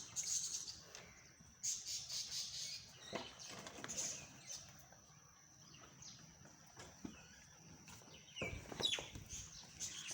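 Small birds chirping and chattering in short bursts, with a faint steady high tone underneath. A few knocks near the end.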